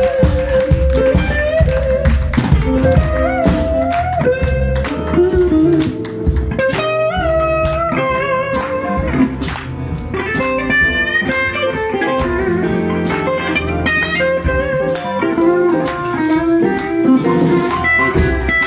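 Live blues band playing: a Telecaster-style electric guitar plays a lead line with bent notes over electric bass and a drum kit's steady beat.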